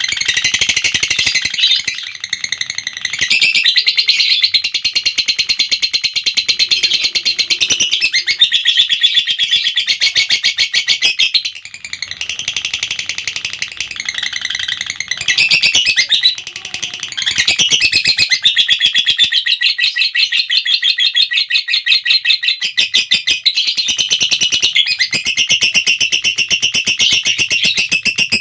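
Lovebird chattering in the long, rapid, shrill trill called ngekek, in long unbroken runs with a few brief pauses.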